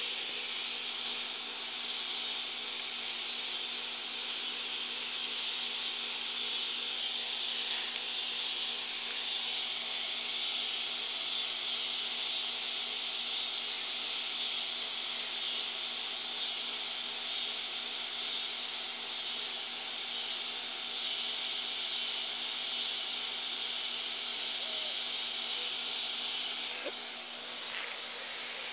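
Steady high-pitched hiss of an insect chorus, unbroken throughout, with a couple of faint clicks.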